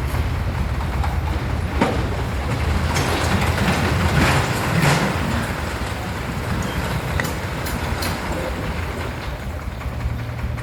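Công nông farm truck's D28 single-cylinder diesel engine running with a steady rattling clatter, growing louder for a moment about three to five seconds in.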